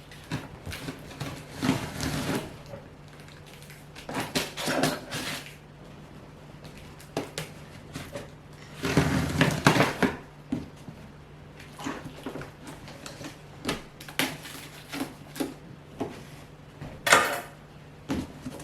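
A cardboard box being opened and its packed parts handled: bursts of rustling, scraping and knocks every few seconds. The longest comes about nine seconds in, and a sharp one near the end.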